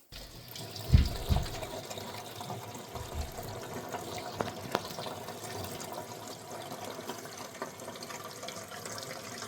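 Water running steadily out of a newly extended copper drain line and splashing into a floor drain, with small clicks and drips through it. Two dull thumps about a second in are the loudest sounds.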